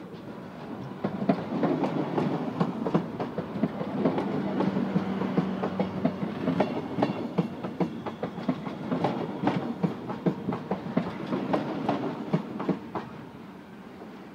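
DB Class 425 electric multiple unit passing close by, its wheels clicking rapidly over rail joints and points above a rumble of the running gear, with a steady hum for a few seconds in the middle. The clatter dies away near the end as the last car goes by.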